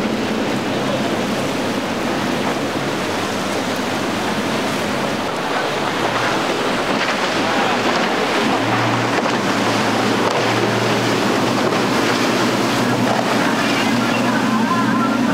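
Outboard engines of center-console boats running at speed past the microphone, a steady drone that grows stronger from about halfway, over the rush of the boats' wake and spray and wind buffeting the microphone.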